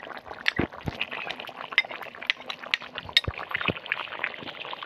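Metal spatula clinking and scraping against a glass bowl as cumin-and-chilli paste is scraped into a boiling curry, then knocking in the karahi as it stirs, over the steady bubbling of the curry. The clicks come irregularly, several a second.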